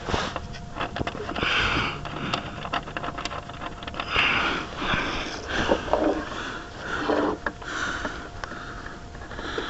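A person breathing hard through the nose in repeated short sniffs, with scattered small clicks and scrapes of a bolt being worked and threaded in by hand.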